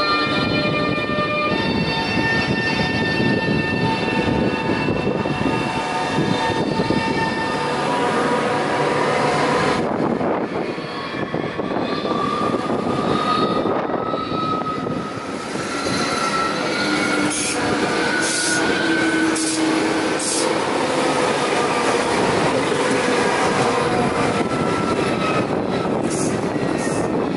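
SBB ETR 610 tilting electric trains running past close by: a steady rumble and rush of wheels on rails, with whining tones, held steady in the first seconds and sliding up and down later on.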